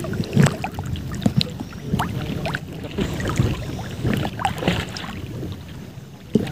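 Seawater sloshing and lapping around a person wading chest-deep, with irregular small splashes.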